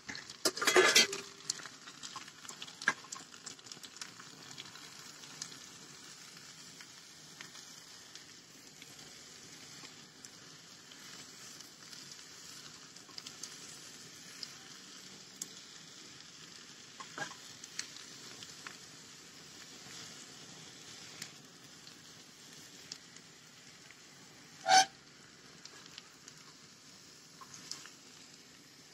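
Potatoes and mushrooms sizzling in a frying pan as they are stirred together, with the utensil scraping and clinking against the pan. A cluster of louder knocks comes about a second in, and a single sharp knock comes late on.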